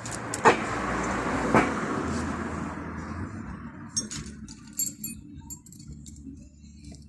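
Metal clinking: two sharp clinks about a second apart over a hiss that fades within a few seconds, with a low steady hum beneath and a few lighter ticks later.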